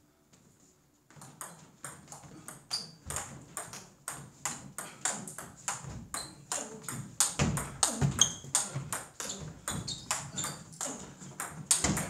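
Table tennis rally: the ball clicking back and forth off paddles and table, several hits a second, starting about a second in. A few heavier thumps are mixed in.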